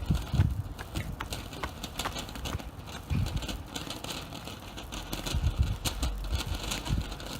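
Consumer firework fountain crackling: irregular sharp pops and crackles over a steady hiss, with a few low rumbles.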